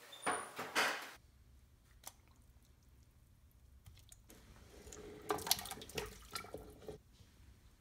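Chicken backs and chopped vegetables dropping into a large enamelware stockpot of water, splashing in a quick run of plops about five seconds in. Near the start, a few knocks and a slosh as the pot of water is set on the stove.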